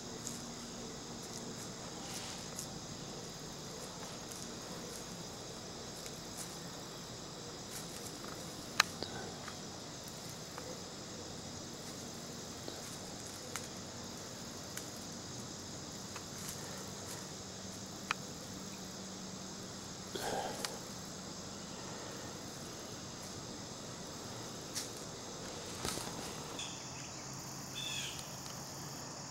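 Steady high-pitched chorus of crickets, with a few sharp clicks and brief rustles over it, the loudest click about nine seconds in.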